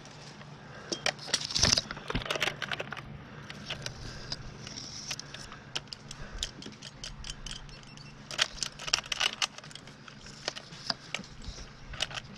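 Small dead branches crackling and snapping as they are broken off, with light metallic clinks, irregular sharp clicks throughout and two louder spells of crackling, one early and one around the middle.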